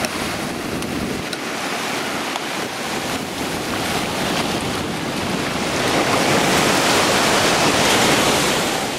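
Sea surf washing onto the shore, with wind on the microphone; the wash swells louder about two-thirds of the way through and eases off near the end.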